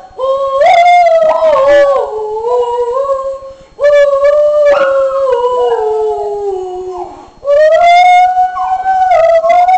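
A small dog howling along with a man's loud singing: three long, drawn-out howls, the middle one sliding down in pitch.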